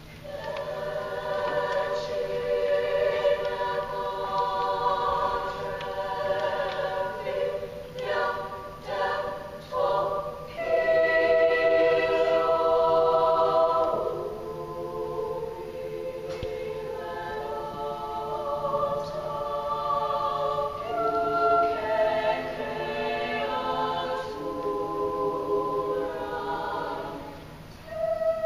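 High school girls' treble choir singing in several parts, mostly in long held chords. There is a short passage of brief, separated notes about eight to ten seconds in.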